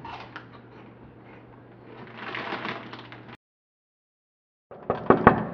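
A plastic snack bag of cheese puffs crinkles and rustles for about a second and a half, starting about two seconds in. The sound then cuts out completely for over a second, and a quick clatter of knocks and handling noise follows near the end.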